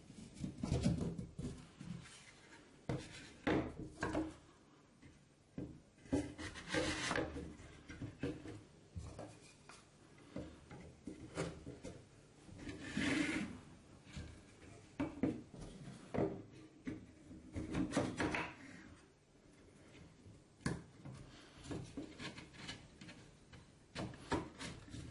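Plywood parts clacking and scraping against each other as tabs are pushed into slots and pieces are knocked together and set down on a wooden table: irregular wooden knocks with a few longer rubbing scrapes.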